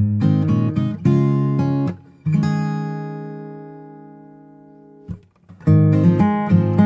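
Background music on strummed acoustic guitar. About two seconds in, one chord is left to ring and fades away, then the strumming picks up again near the end.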